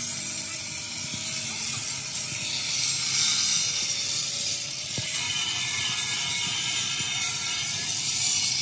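Electric angle grinder grinding the steel rail of a truck chassis, the disc running against the metal in a steady hissing grind that swells a little about three seconds in and again near the end.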